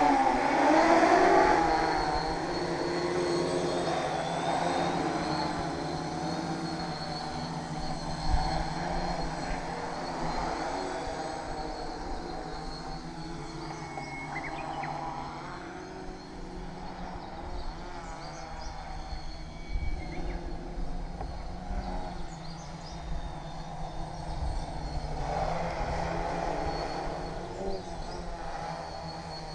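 Tarot FY680 hexacopter's electric motors and propellers buzzing in flight, the pitch wavering up and down as the throttle changes. Loudest in the first couple of seconds and again near the end, quieter in between.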